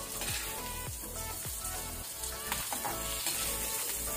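Cubed onion and green chillies sizzling in hot oil in an aluminium kadai, with a steel ladle stirring and scooping through them against the pan.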